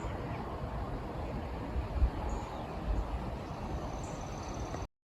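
Outdoor ambience: a steady low rumble and hiss with a couple of brief low bumps, cutting off abruptly just before the end.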